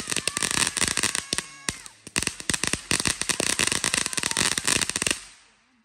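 Ground fountain firework spraying sparks: a dense, rapid crackle of many small pops. The crackle thins briefly about two seconds in, then stops a little after five seconds as the fountain burns out.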